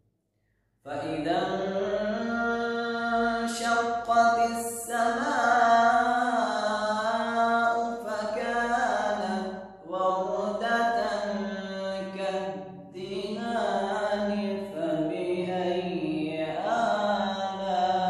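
A single voice chanting in long, melodic held phrases, starting about a second in, with brief pauses for breath near the middle.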